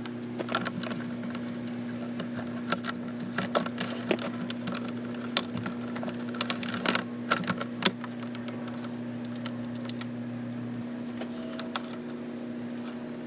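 Irregular light clicks and taps of a USB charger cable and its plug being handled and fed along a motorcycle frame. They come quickly for the first several seconds, then thin out, over a steady low hum.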